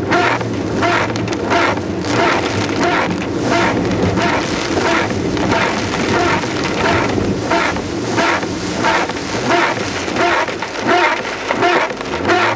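Car driving slowly through heavy rain, heard from inside the cabin: a steady low engine hum under the noise of rain on the car, with repeated pulses about two or three times a second.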